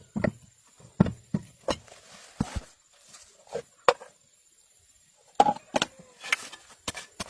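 A series of sharp, irregular knocks and taps, several a second, with a pause of about a second just past the middle.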